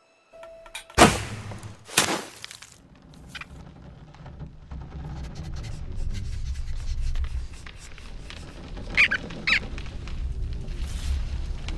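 Animated-film sound effects: two sharp swishes about a second apart, then a low rumble that grows louder, with a few short high squeaks about nine seconds in.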